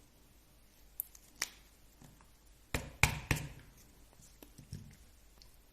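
A few sharp clicks and light knocks of small plastic RC-car differential parts and tools being handled during disassembly, the loudest cluster about three seconds in.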